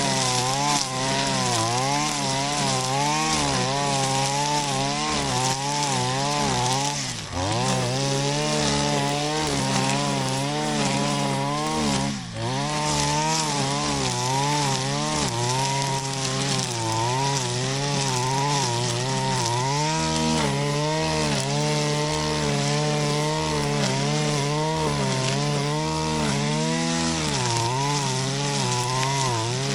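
Shindaiwa RK3026-PT brush cutter's 25.4 cc two-stroke engine running at high revs while cutting grass. Its note wavers up and down continuously as the load changes, and it dips briefly twice, about 7 and 12 seconds in.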